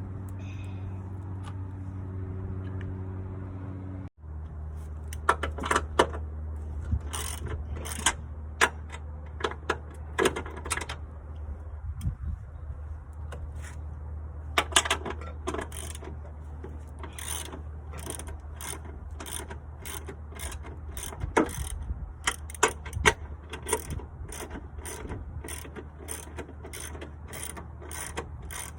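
Hand ratchet wrench clicking in repeated strokes as it turns a shock absorber's mounting nuts, the clicks coming in runs and then settling into an even rhythm of about two a second.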